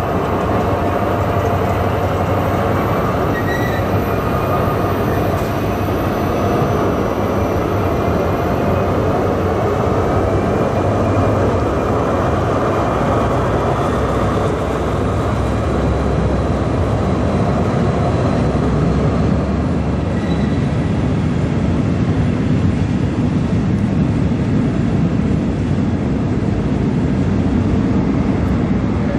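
Class 223 (Siemens ER20 "Hercules") diesel locomotive's engine running steadily: a continuous loud, deep drone, with faint high whining tones over it.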